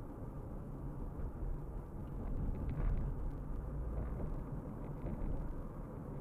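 Steady low rumble of a car driving at moderate speed: tyres on asphalt and engine, heard from the moving car, swelling slightly about three seconds in.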